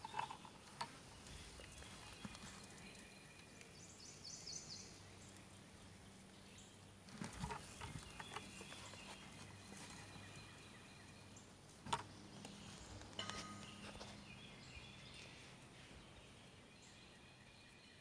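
Faint creekside ambience with scattered high bird chirps, including a quick run of notes about four seconds in, and a few soft knocks.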